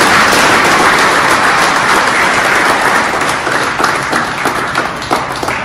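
A group of people applauding: dense, steady clapping that slowly dies down near the end.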